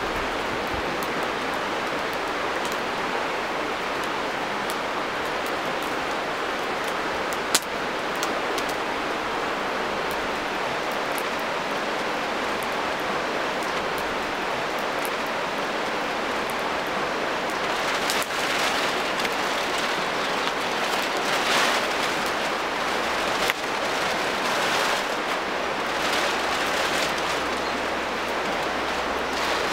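Steady rush of a small river's rapids, with a campfire crackling and popping. Louder rustling and crunching footsteps on dry leaf litter in the second half.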